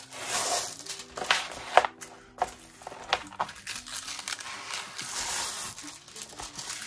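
Crinkling of the clear plastic film covering a diamond painting canvas as it is handled and smoothed flat by hand, in irregular rustles with a few sharper crackles, the loudest a little under two seconds in.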